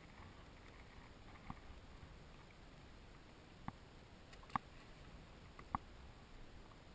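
Four short, sharp knocks on the plastic kayak that carries the camera, over a faint steady hiss. The loudest knock comes a little past the middle.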